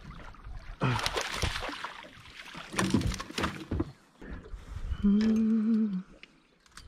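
A threadfin salmon splashing and thrashing at the water's surface as it is netted, in two loud bursts about a second in and again around three seconds in. About five seconds in, a person hums a short steady note.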